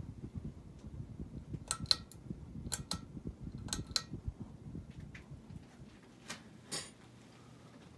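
Hunter Low Profile II ceiling fan running with an uneven low rumble and a series of sharp clicks, mostly in pairs about a second apart. The rumble drops away about three-quarters of the way through, leaving a low steady hum.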